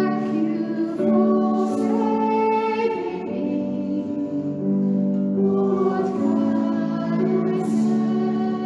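A worship song sung to strummed acoustic guitar, with long held sung notes.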